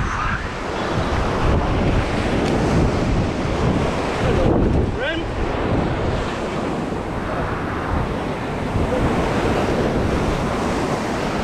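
Ocean surf breaking and surging against a rock ledge, loud and continuous with swelling waves, with wind buffeting the microphone.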